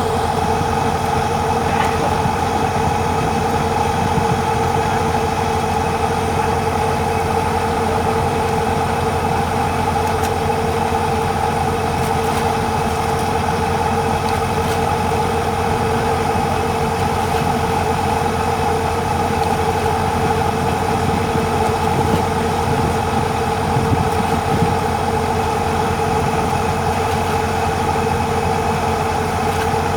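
An engine running steadily at an even speed, a constant drone with a steady hum that holds its pitch throughout.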